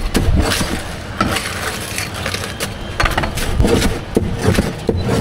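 Irregular sharp knocks and clatter, like cooking utensils striking a hard surface, over steady background noise.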